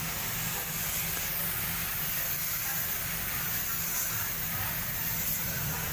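Steady hiss of a paint spray gun at work, with a steady low machine hum underneath.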